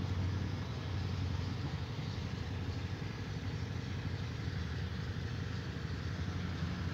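An engine running steadily, an even low hum with no change in speed.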